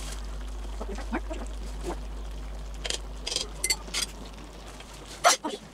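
Faint simmering with a steady low hum and a few soft metal clicks and taps as pepper is spooned over a tomato-based stew in a pan. A louder sharp knock comes about five seconds in, and the hum stops with it.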